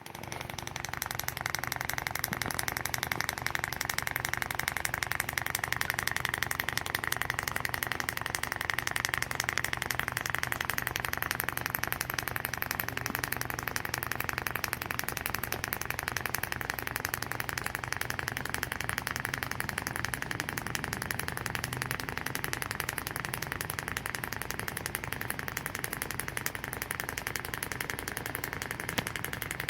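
A motor running steadily at a constant speed, with a fast, even pulse; it becomes slightly quieter about halfway through.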